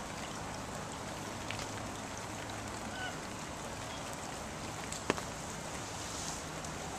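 Steady outdoor background hiss with a faint low hum, broken by one sharp click about five seconds in.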